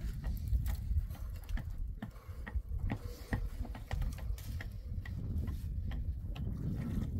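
Irregular light clicks and taps, several a second, over a steady low rumble.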